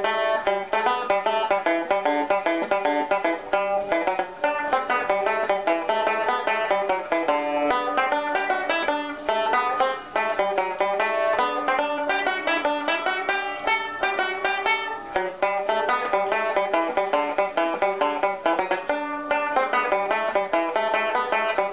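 A banjo playing an Irish tune as a fast, unbroken run of plucked notes.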